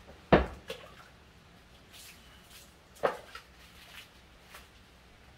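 Two sharp knocks about three seconds apart, each followed by a fainter tap, then a few light taps.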